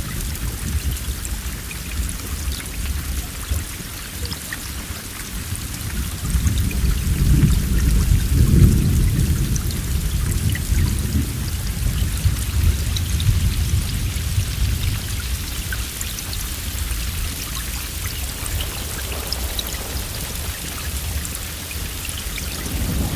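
Heavy rain falling steadily, with a low roll of thunder that builds from about six seconds in, peaks a few seconds later and slowly fades away.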